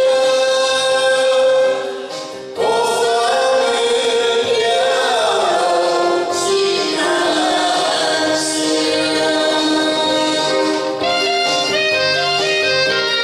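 A man and a woman singing a duet through microphones over a karaoke backing track. Near the end the voices stop and an instrumental passage carries on.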